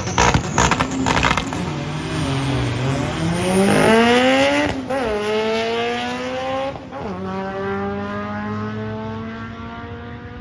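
Drag car popping and crackling on its two-step launch limiter, then launching and accelerating hard down the strip. The engine pitch climbs, drops at two upshifts about five and seven seconds in, and fades as the car pulls away.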